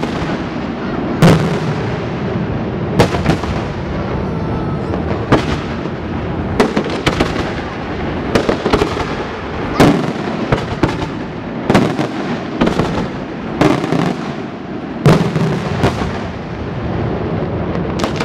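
Aerial firework shells bursting in a display: about ten sharp bangs, one every second or two, with a steady crackle between them.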